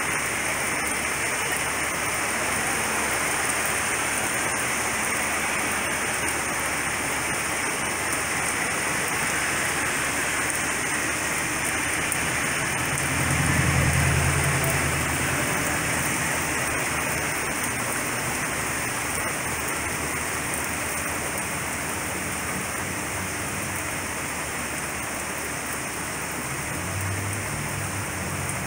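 Steady heavy rain falling during a thunderstorm. A low rumble swells briefly about halfway through, with a fainter one near the end.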